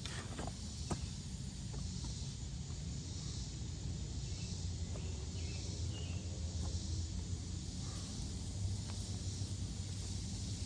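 Steady outdoor background noise: a low rumble with a faint high hiss over it, and a few light clicks.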